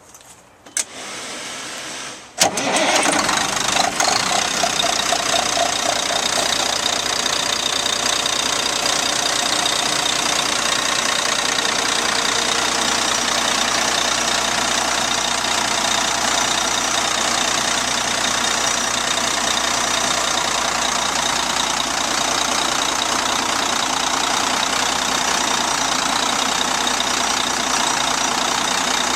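Cat C-10 diesel engine in a 2002 Kenworth T800 mixer truck being started: a click, a bit over a second of starter cranking, then the engine catches about two and a half seconds in and runs steadily.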